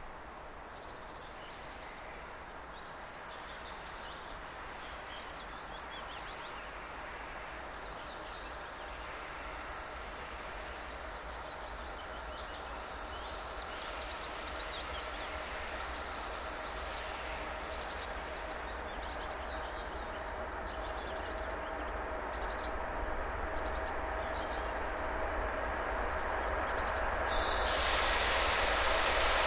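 Twin-section 2TE116 diesel locomotive running light, its V16 diesel engines growing steadily louder as it approaches, with a sudden step up near the end. A bird repeats a short, falling chirp every second or two over it.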